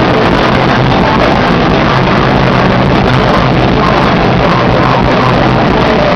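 Live rock band playing at full volume: a dense, unbroken wall of sound with no pauses.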